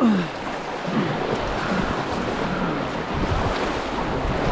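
A steady rush of moving creek water around a kayak, with wind on the microphone. Right at the start, a person's brief exclamation falls in pitch.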